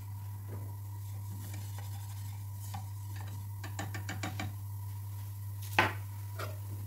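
Silicone whisk stirring a crumbly butter-and-flour roux in a nonstick pot, with soft scraping and a quick run of clicks against the pot about four seconds in. A single sharp knock comes just before the end, as the whisk leaves the pot, over a steady low hum.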